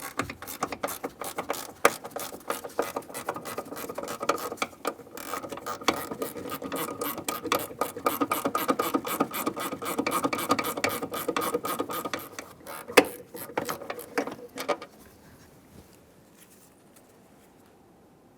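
A ratchet-type tool turning out the 13 mm bolts that hold the lower hinge to the door: rapid clicking over a steady whirring hum. It stops about 15 seconds in.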